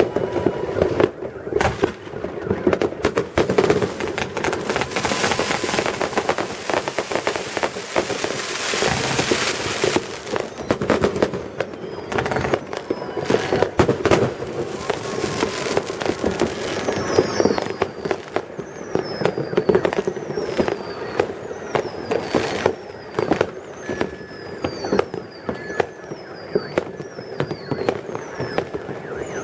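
Many fireworks going off at once: a dense, continuous crackle of bangs and firecracker reports. From about halfway through comes a run of short falling whistles, about one a second.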